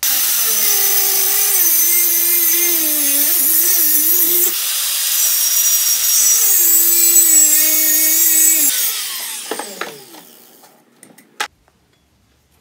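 Angle grinder's abrasive disc cutting a notch into a steel pipe. Its motor whine sags and wavers as the disc bites, rises briefly when the load eases about four and a half seconds in, and drops again under load. After about nine seconds the trigger is let go and the whine falls away as the disc spins down, followed by a single metallic clink.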